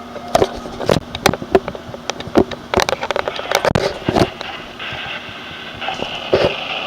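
Weather radio receiver static: irregular crackles and sharp pops over a faint low hum, with a steadier hiss coming in near the end. This is the noisy signal of a transmitter that is having problems.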